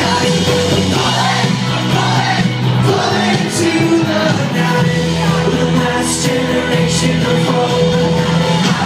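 Live rock band playing guitars with a singer, recorded from the crowd in a concert hall.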